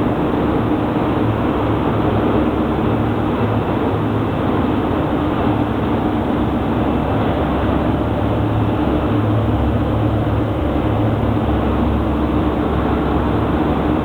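Steady, loud industrial machinery noise with a constant hum: plant running in an aluminium melting and rod casting-and-rolling works.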